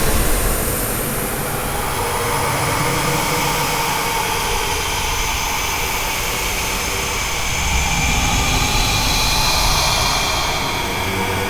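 Scary haunted-house ambience: a steady, dense drone with faint whistling tones drifting above it.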